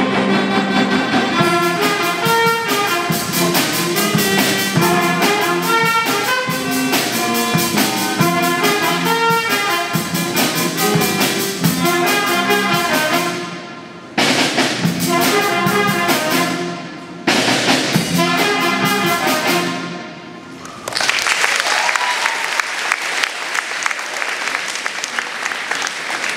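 School jazz band of trumpets, trombone, saxophones and drum kit playing an up-tempo tune. It stops short twice, then ends about three quarters of the way through and gives way to audience applause.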